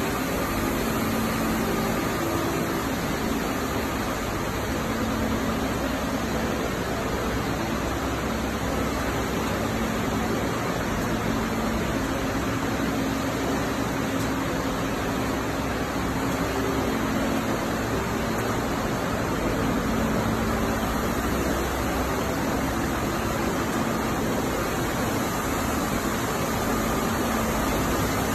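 Steady hiss and hum of a PET bottle recycling line's machinery running: motors, blowers and washing equipment, with a low hum that shifts slightly now and then.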